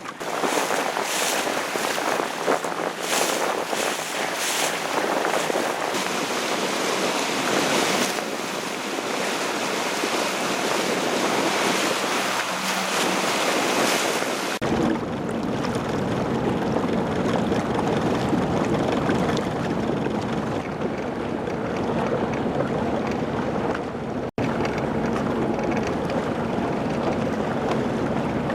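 Wind gusting across the microphone over a rush of water noise. About halfway through the sound changes abruptly to a steadier, deeper rumble with a faint low hum.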